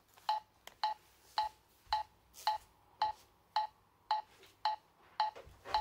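Metronome ticking steadily, a short pitched click about every half second (roughly 110 beats a minute). It is set to be felt as the off-beats of eighth notes for bebop phrase practice.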